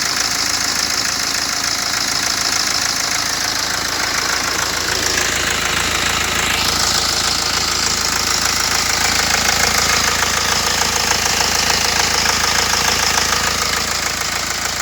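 BMW X1's four-cylinder diesel engine running steadily at idle, with its typical rapid diesel clatter. The crankshaft damper pulley has just been replaced, which the mechanic says has cured the earlier knocking rattle.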